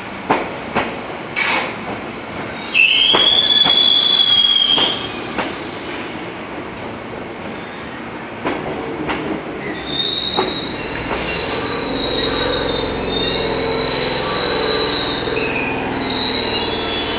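Hankyu 3000 series electric train rolling slowly through a tight curve, its wheels squealing against the rails. A few sharp clicks come in the first seconds, then a loud high squeal about three seconds in. From about ten seconds a steady high squeal returns with brief flares over a low rumble.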